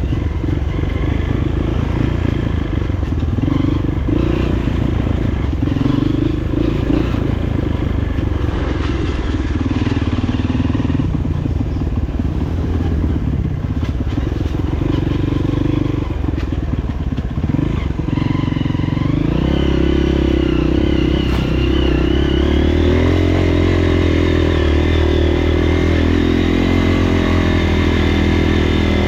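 Freshly overhauled Honda CRF230F's single-cylinder four-stroke engine running under way, the revs rising and falling, then stepping up to steadier, higher revs about two-thirds of the way through.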